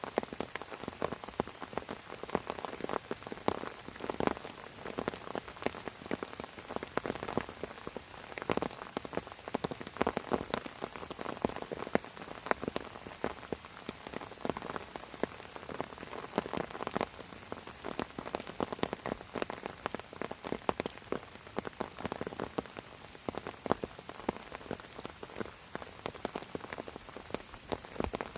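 Steady rainfall pattering on fern fronds, a dense hiss with many individual drop ticks.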